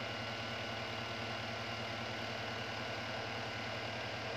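Small electric desk fan running steadily: an even whir of the blades over a low motor hum, with a faint steady high whine on top.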